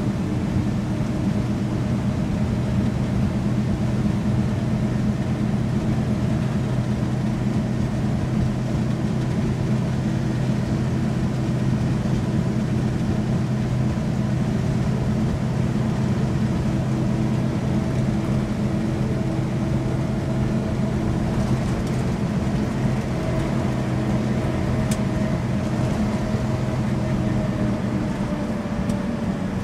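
Truck engine running steadily at highway cruising speed, with a steady hum and road noise, heard from inside the cab.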